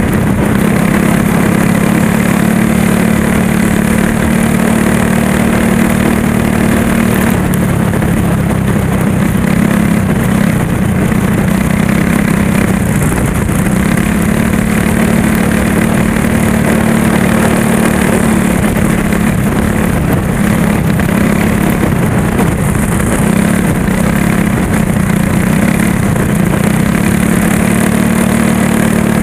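Go-kart engine running hard under race throttle, heard close from an onboard camera on the kart; its steady drone dips and recovers slightly a few times as the kart goes through the turns.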